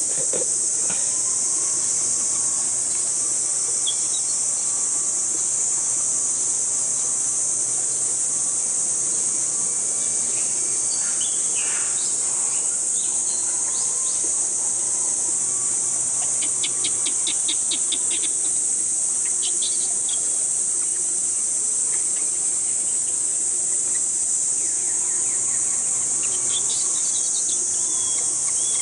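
A steady, shrill insect drone, with a few short chirps and a quick run of clicks over it about halfway through.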